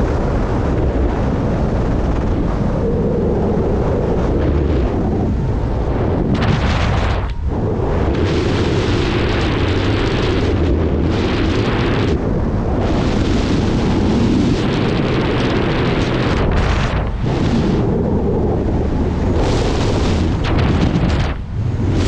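Wind buffeting the microphone of a skydiver's body-worn camera during the descent, a dense rumbling rush with a few brief dips in the noise.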